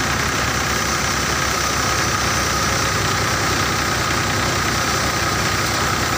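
Tractor-powered Surya paddy thresher running steadily as bundles of paddy stalks are fed into it: the tractor engine and the spinning threshing drum make one continuous, even drone with a steady whine in it.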